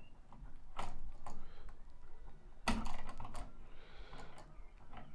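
Wire strippers and hand tools clicking and rattling against electrical wire in a few sharp, irregular clicks, as the insulation is stripped back from a wire end.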